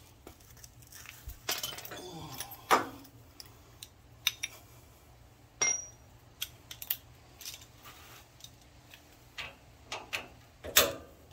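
Scattered metallic clinks and clanks of a socket wrench and extension being fitted onto and worked against the steel mounting bolts of a riding mower's transaxle, with a louder clank near the end.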